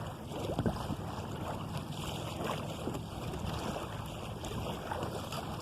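Steady wind noise on the microphone with water washing along the hull of a small sailing canoe running downwind.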